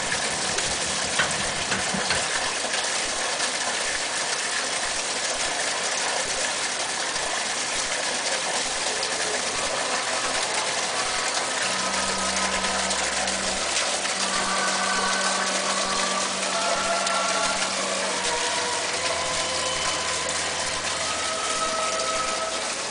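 Steady rush of running water from the animated crèche's water features. About halfway through, a low motor hum joins it and stops and starts a few times.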